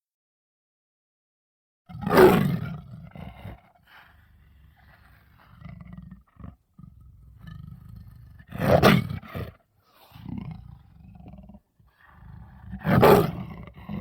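Sabre-toothed cat (Smilodon) sound effects: three loud big-cat roars about two, nine and thirteen seconds in, each trailing into low rumbling growls, after a short silence at the start.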